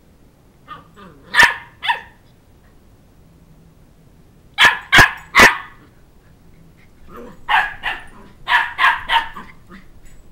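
Sheltie puppy barking in play. The barks come in short volleys: a few about a second in, three sharp barks in quick succession around five seconds in, then a fast run of barks near the end.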